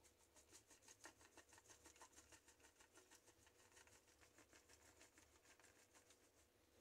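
Near silence, with faint rapid ticks, about four or five a second, of a garlic salt shaker being shaken over a food processor bowl of chickpeas.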